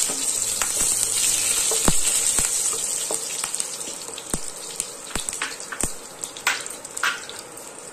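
Panch phoron seeds and dried red chillies sizzling in hot oil in a nonstick pan, stirred with a spatula. The hiss fades gradually and is broken by scattered sharp clicks.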